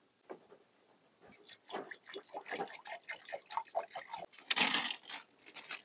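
Water poured from a plastic bottle into the stainless steel pot of a Joulle electric camping kettle, splashing in quick, irregular drops, with a brief louder rush about four and a half seconds in.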